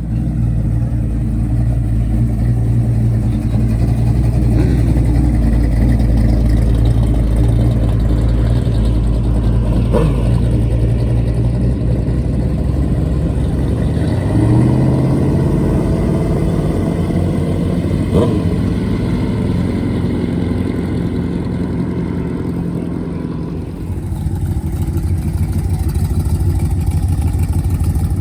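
A car engine running loud and steady at a low idle, stepping up in speed about halfway through, with two short sharp clicks along the way.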